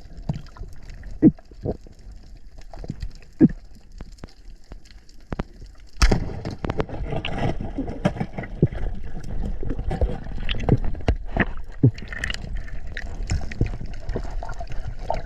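Water gurgling and sloshing around the camera: scattered clicks and knocks at first, then a sudden louder burst about six seconds in that turns into continuous bubbling and sloshing.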